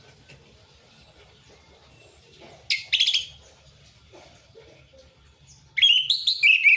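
Orange-headed thrush singing: a short loud burst of song about three seconds in, then a longer phrase of several changing notes near the end.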